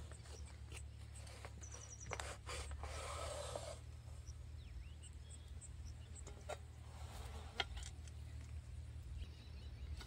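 Wooden spatula scraping under a pizza in a black iron wok and sliding it out onto an enamel plate: a few light knocks and a scraping rub about three seconds in, with a sharper knock later on.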